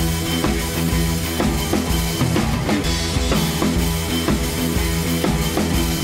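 Background music with a steady drum-kit beat.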